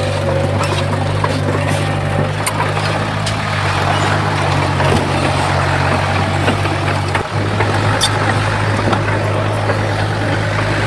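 Diesel engine of heavy earthmoving equipment running steadily, with scattered clicks and knocks over it and a slight change in the engine note about seven seconds in.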